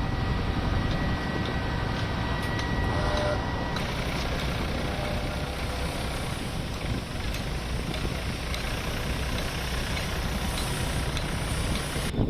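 Steady engine rumble with a thin high whine in the first few seconds; it cuts off abruptly near the end.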